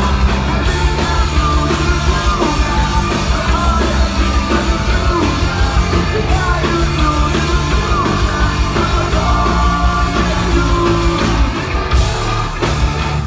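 A punk rock band playing loud, with sung and shouted vocals over guitars and drums. The mix thins briefly near the end.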